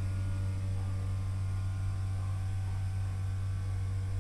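Steady low electrical hum with faint higher tones from a Stannah passenger lift, the car standing at the floor with its doors still shut.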